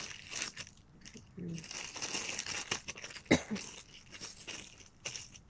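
Clear plastic bag crinkling as it is handled and folded, in irregular small crackles, with one sharper, louder crackle about three seconds in.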